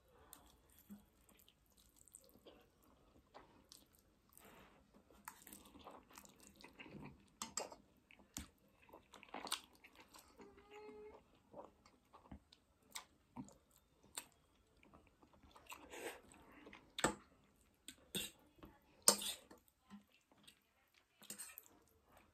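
Faint sounds of spicy ramen noodles being eaten and chewed, with scattered short clicks and a few louder ones near the end.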